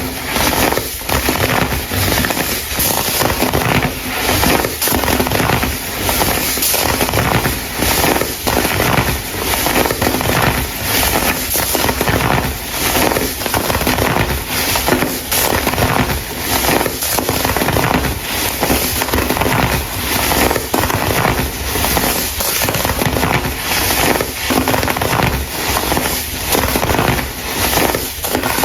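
Clumps of baking soda being crushed and crumbled by hand: dense, steady crackling and crunching, rising and falling with each squeeze.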